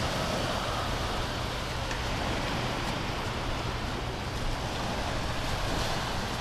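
Steady distant rumble of a jet airliner climbing out after takeoff, mixed with the wash of small surf.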